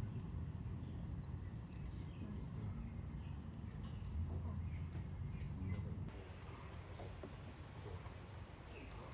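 Several birds chirping with short, quick notes that fall in pitch, over a low rumble that drops away about six seconds in.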